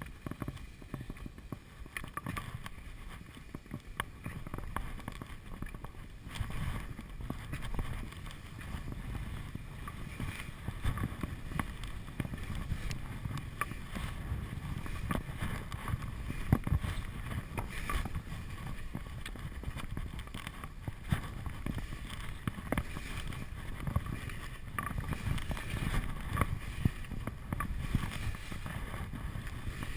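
Wind rushing over the microphone of a helmet-mounted action camera during a downhill ski run, mixed with the hiss and scrape of skis on snow and scattered small knocks.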